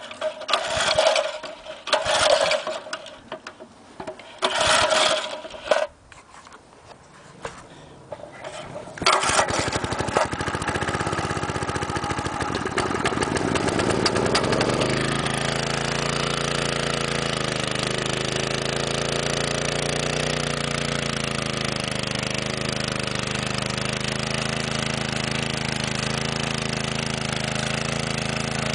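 A 1961 McLane edger's 2 HP Briggs & Stratton engine being pull-started from cold on choke. Several short pulls of the recoil starter come before it catches about nine seconds in. Its speed swings up and down for a few seconds, then it settles into a steady run.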